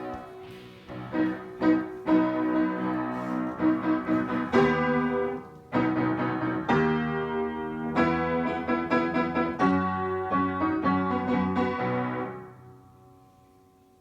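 Instrumental piano music: a passage of struck chords that rings out and fades away about twelve seconds in.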